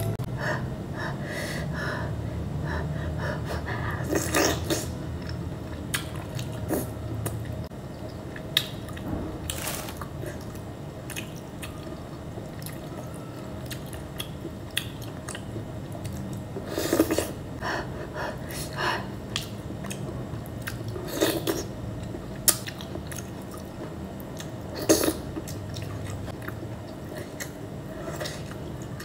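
A person eating sauced green mussels close to the microphone: short wet sucking and smacking sounds as the meat is pulled from the shells, chewing, and now and then a click of shell, every few seconds over a steady low hum.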